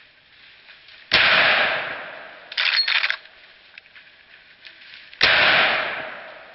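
Two gunshots from a Marlin lever-action rifle in .45-70, about a second and four seconds in, each fading away over about a second through the woods. A short rattling clatter between them comes as the lever is worked.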